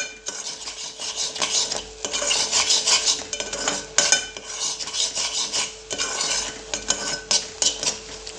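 A utensil continuously stirring and scraping turmeric paste and ground dry fruit frying in ghee in a pot, with sharp clinks against the pot about every two seconds.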